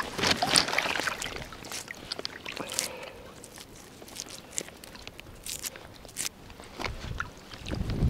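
Shallow seawater sloshing and dripping as a gill net is lifted and worked by hand while wading, with many short splashes and drips, louder in the first second and again near the end.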